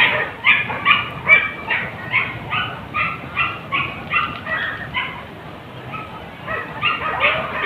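Boar-hunting dogs yelping and barking in a rapid, unbroken string of high calls, about three a second. They let up for about a second near the five-second mark, then pick up again.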